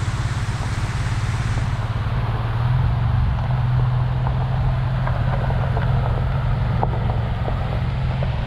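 Pickup truck running slowly on a dirt trail: a steady low engine drone that grows a little louder about three seconds in, with scattered small knocks and rattles.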